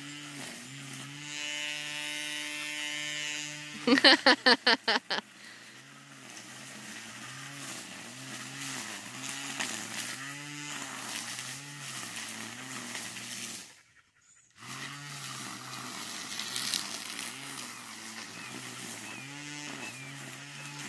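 Electric string trimmer running while cutting weeds, its motor whine dipping and recovering in pitch as the line bites into the growth. A short burst of loud, rapid slapping comes about four seconds in, and the sound drops out for under a second partway through.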